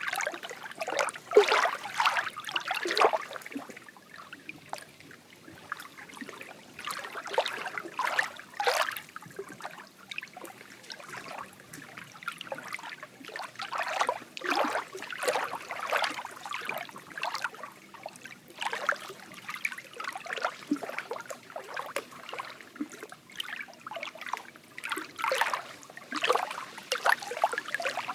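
Lake water lapping and trickling in short, irregular little splashes that rise and fall in level every second or so.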